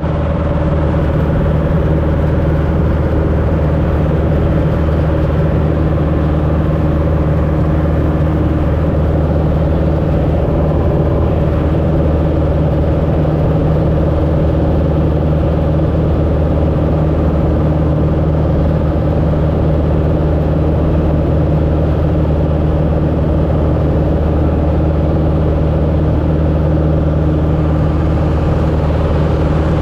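Light airplane's piston engine and propeller droning steadily in flight, heard from inside the cockpit, with a constant low hum and no change in power.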